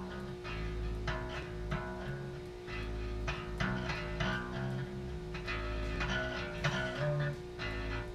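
Background music: a guitar-led track of plucked notes over a moving bass line.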